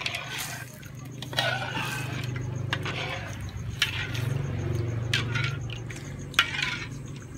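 Metal spatula scraping and clinking against an aluminium wok while stirring melted sugar as it bubbles and caramelizes, with several sharp clinks through the stirring. A steady low hum runs underneath.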